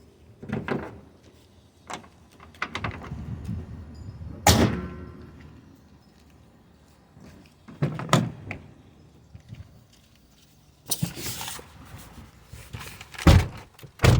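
A series of car-body thunks and slams on a 2009 Mazda 5: a loud slam with a brief metallic ring about four and a half seconds in, another knock near eight seconds, some rustling, then a heavy car-door thump near the end.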